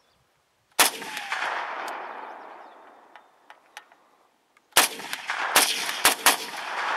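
Five shots from a VZ-58 rifle in 7.62x39: one about a second in, then four more in quick succession near the end, each trailing off in a long decaying echo.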